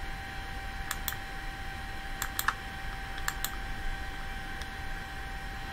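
Computer mouse clicking: a handful of sharp clicks, several in quick pairs, over a steady hiss and a faint steady tone in the recording.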